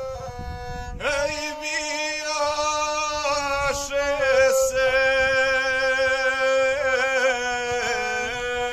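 A gusle, the single-string bowed folk fiddle, plays a short phrase. About a second in, a man starts singing an epic verse in the traditional guslar style over it, in long held, wavering notes, with the gusle droning along under the voice.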